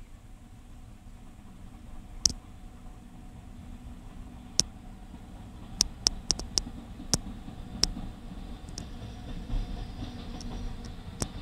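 Distant freight train, hauled by an electric locomotive, rolling slowly into the station yard; its low rumble grows toward the end. A scattered series of sharp clicks runs through it, the loudest a little over two seconds in.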